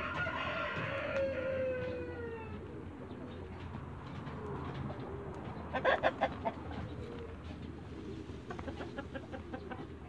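A rooster crows once, a long call falling in pitch. Chickens then cluck in short quick runs, loudest about six seconds in, with softer clucking near the end.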